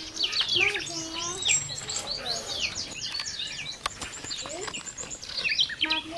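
Birds chirping and twittering, a busy run of quick rising and falling calls, with some lower drawn-out calls mixed in near the start and again near the end.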